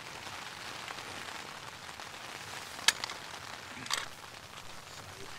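Steak and rice sizzling in a frying pan on a backpacking gas stove, a steady crackling hiss, with two sharp clicks about three and four seconds in.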